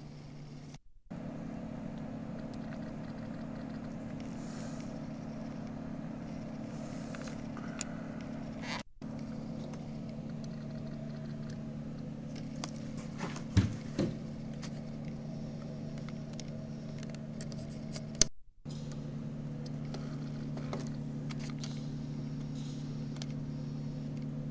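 Steady low hum, cut off briefly three times, with a few sharp clicks and knocks in the middle.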